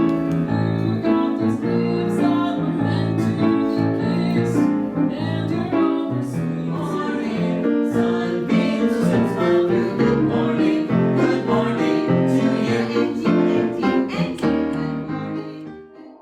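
Piano-led music with singing, playing steadily and dropping away near the end.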